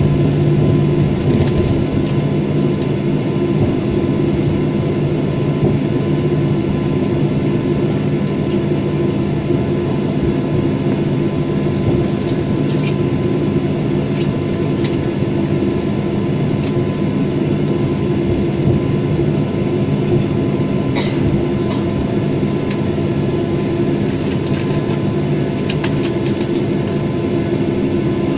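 Boeing 737-800's CFM56-7B jet engines at taxi idle, heard from inside the cabin: a steady drone with a few held tones, and faint scattered clicks and rattles.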